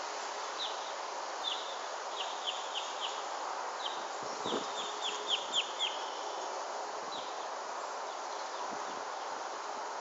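A songbird singing: quick runs of short, high notes, each slurring downward, in several phrases, the loudest about five to six seconds in, over a steady outdoor hiss.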